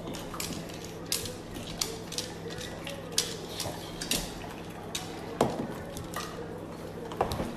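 Dogs' claws clicking and tapping on a hardwood floor as they shift about, in irregular sharp clicks over a steady low hum, with a couple of louder knocks late on.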